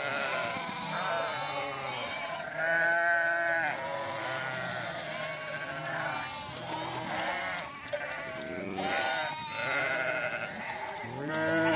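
A flock of sheep bleating, many calls overlapping, with louder single bleats about three seconds in and again near the end.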